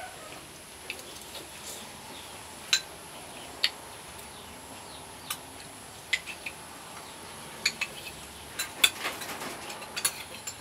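Metal spoon clinking and scraping against a ceramic soup plate while eating: about a dozen short, sharp clicks at irregular intervals, coming closer together in the last few seconds.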